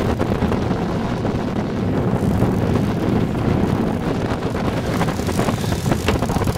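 Steady wind buffeting the microphone over open, choppy water, with a couple of faint clicks near the end.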